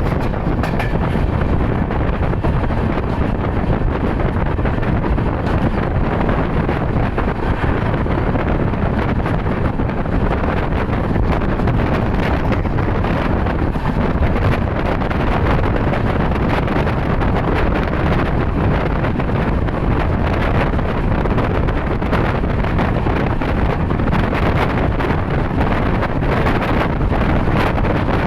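Wind buffeting the microphone steadily over the running of a vehicle, as when filming from a moving vehicle.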